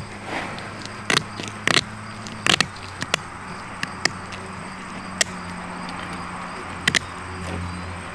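Heavy-duty KitchenAid kitchen shears snipping through a gar's hard armored scales along its back, a series of about nine sharp, irregular crunches; the crunch is the sound of how tough the armor plating is. A low steady hum runs underneath.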